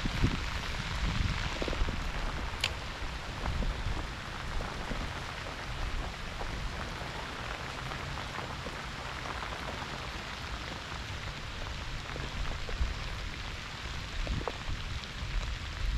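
Heavy rain pouring down steadily, an even hiss without breaks.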